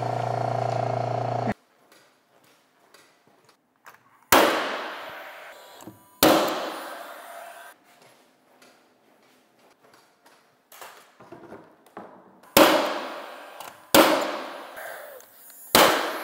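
A steady mechanical hum, the vacuum pump running the countertop clamps, cuts off abruptly about a second and a half in. Then a cordless finish nailer fires five sharp shots into door casing trim, each ringing off for a second or so.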